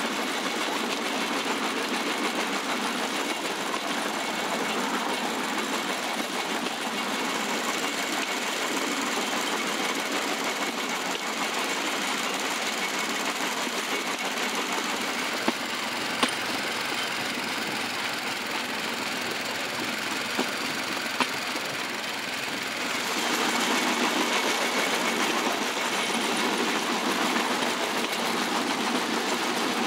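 Small single-cylinder Hongda petrol engine running steadily, belt-driving a bamboo train along the rails, with a fast, rattling beat. A few sharp clicks in the middle, and the running grows louder about two-thirds of the way through.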